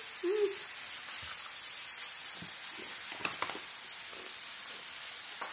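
Steaks searing in the background, a steady sizzle, with a couple of faint clicks about three seconds in.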